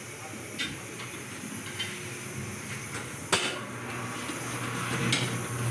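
Tyre being levered onto an alloy rim on a tyre-changer machine: a steel tyre lever clanks several times against the rim and machine, the loudest knock a little past halfway, over a steady hiss. A low hum comes in after the loudest knock.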